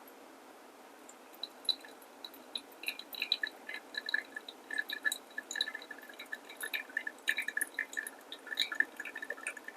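Pour-over coffee being brewed: liquid dripping and trickling into a glass vessel as quick, irregular plinks that start about a second in.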